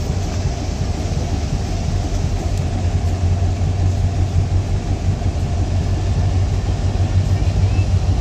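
Diesel locomotive engine running, a steady low rumble that slowly grows louder.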